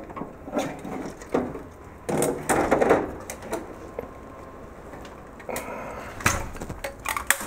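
Clattering and knocking of a tape library's metal robot rail and plastic cable carrier chain as they are pulled out of the rack. A louder scraping rattle starts about two seconds in and lasts about a second, and a few sharp knocks come near the end.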